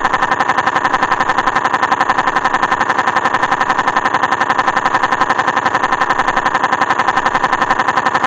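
Loud, steady buzzing tone that pulses rapidly, about a dozen times a second, holding the same pitch throughout.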